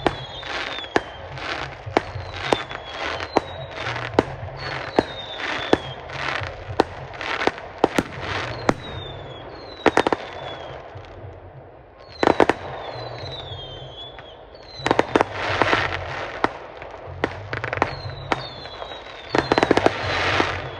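Fireworks display: rapid sharp bangs and crackling from exploding shells, with short whistles falling in pitch over the top. There are heavier volleys of bangs about halfway through, again a little later, and near the end.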